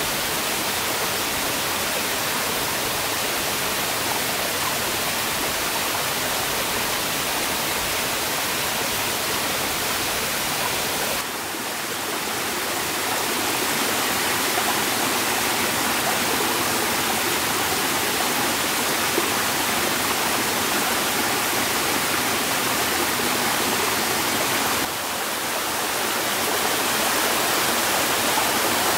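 Steady rush of water, with two brief dips, about eleven seconds in and near the end, after which it carries on slightly louder.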